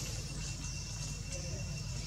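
Steady outdoor ambience: a thin, unbroken high tone and hiss over a low rumble, with a few faint chirp-like glides.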